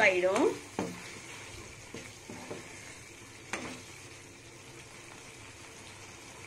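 Thick prawn curry sizzling and bubbling in an open non-stick kadai as the liquid released by the prawns cooks off, stirred with a wooden spatula, with a few light knocks of the spatula against the pan.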